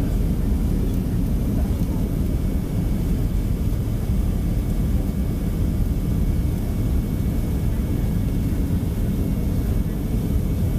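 Steady low rumble of engine and airflow noise inside the cabin of a Boeing 737-300 airliner on approach to land, with a faint steady whine above it.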